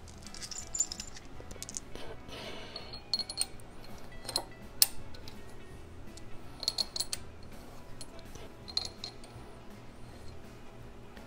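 Light metallic clinks and taps of bolts and a crank adapter being handled and fitted by hand on a Buick straight-eight's crankshaft, coming in several small clusters, over quiet background music.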